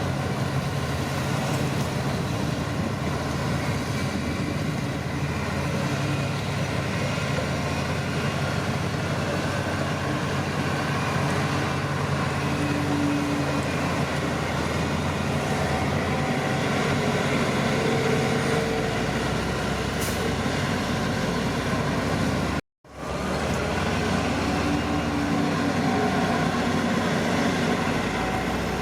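Shantui crawler bulldozer's diesel engine running steadily under load as it pushes mud. The sound cuts out for a moment about three-quarters of the way through, then resumes.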